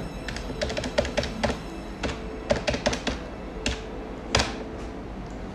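Keys of a desk calculator being tapped in quick, irregular clicks, over faint background music.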